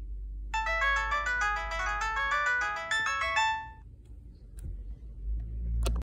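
A Huawei CM295 feature phone plays its short power-on melody through its small loudspeaker: a quick run of electronic notes lasting about three seconds. A handling bump follows near the end as the phone is moved.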